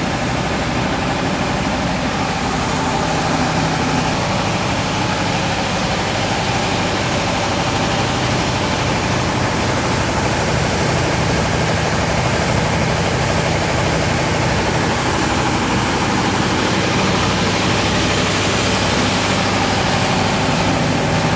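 An engine running steadily at idle, with no revving or change in speed.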